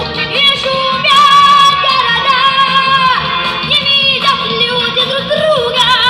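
A young girl singing a song live into a microphone over a backing track, amplified through the stage sound system. About a second in she holds one long note for roughly two seconds, then goes on in shorter phrases.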